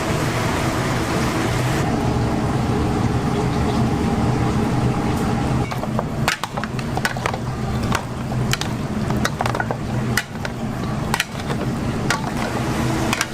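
Steady machine hum with low tones, joined about halfway through by a run of irregular sharp knocks and clacks, like kitchen work clatter.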